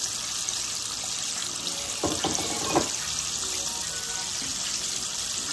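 Chicken strips deep-frying in a pot of hot vegetable oil: the oil bubbling and sizzling steadily.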